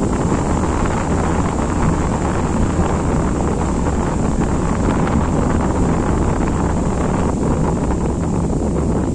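Wind blowing across the microphone: a steady, loud rushing noise with heavy low rumble.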